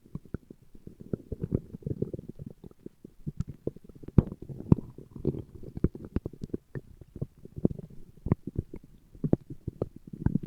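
A man's stomach growling and gurgling: a dense run of short low pops and bubbling clicks in quick succession, without a break.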